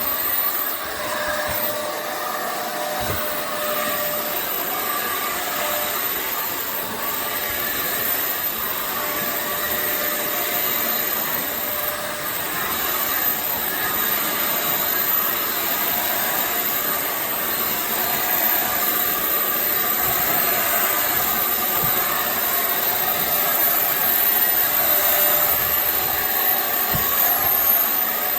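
iwoly C150 cordless stick vacuum running steadily, its motor giving a continuous rush of air with a thin, very high whine.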